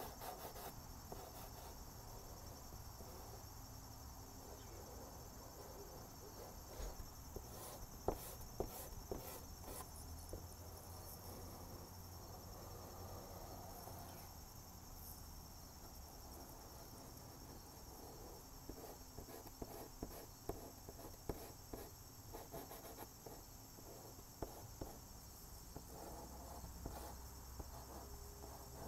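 Chalk pastel rubbed across drawing paper in soft scratchy strokes, with scattered light ticks, over a faint steady high-pitched whine.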